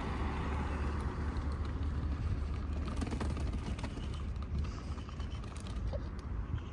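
Baby pram being pushed along a paved pavement: the wheels rolling with a steady low rumble and light rattling clicks over the paving.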